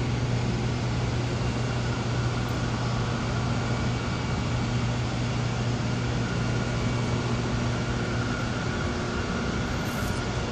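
A steady low machine hum that holds one pitch and level throughout, with a fainter higher tone above it.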